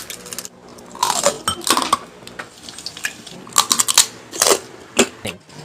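Irregular clinks and clatters of dishes and cutlery being handled, coming in two clusters of quick strokes.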